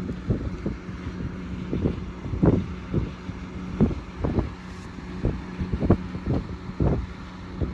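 Wind buffeting the microphone in irregular gusts over a steady engine hum.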